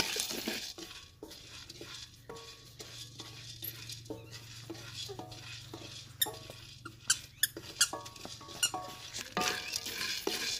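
Wooden spatula stirring peanuts roasting in a steel karahi: the nuts rattle and patter against the metal with scraping strokes. The stirring is busy at the start and again near the end, softer and sparser in between.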